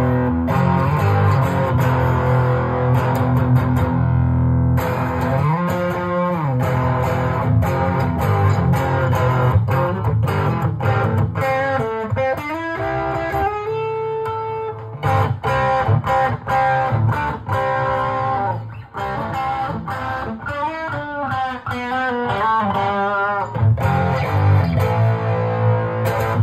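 Electric guitar playing: held chords at first, then single-note lead lines with string bends and vibrato through the middle, and chords again near the end.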